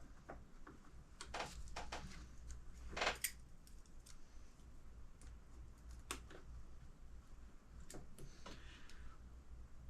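Scattered light clicks and taps of hand tools and small parts being handled, with the loudest cluster about three seconds in.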